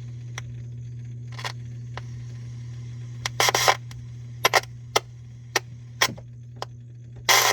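Car sound system putting out a steady low hum with irregular sharp pops and clicks, and a couple of short crackling bursts, but no music. The horn tweeters only crackle and hiss instead of playing, a sign that something in the hookup is wrong.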